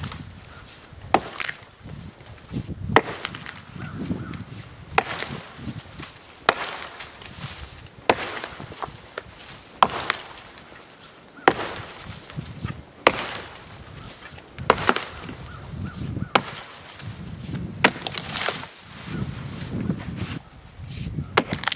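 Freshly sharpened Plumb Permabond Dayton-pattern axe chopping into a fallen tree limb. It strikes about every one and a half to two seconds, roughly a dozen blows, each a sharp chop into the wood.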